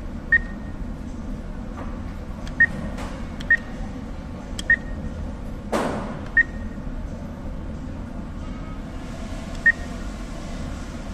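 ATM beeping to confirm button presses: six short single-pitch beeps at uneven intervals over a steady low background hum, with a brief rush of noise a little past halfway.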